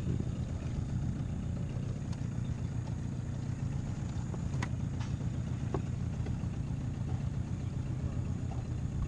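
A fishing boat's outboard motor running steadily at low speed while towing a jet ski.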